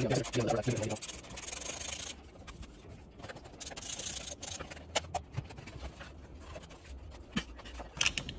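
Plastic instrument cluster housing rubbing and scraping against the dash as it is worked out of its opening, in two hissing scrapes with a few sharp plastic clicks later on.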